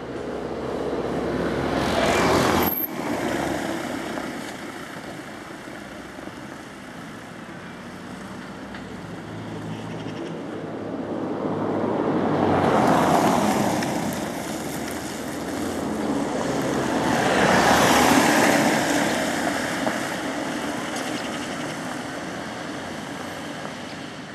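Road traffic passing: three vehicles swell up and fade away, about 2, 13 and 18 seconds in, the last the loudest, over a steady rush of background traffic noise.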